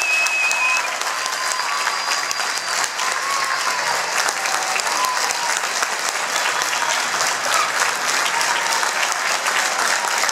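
Audience applauding steadily, with scattered cheers and shouts over the clapping.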